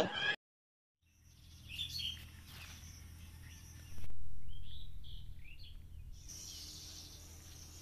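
Outdoor ambience: a few short bird chirps and calls over a low steady rumble that swells briefly about halfway through, with insects shrilling steadily from about six seconds in.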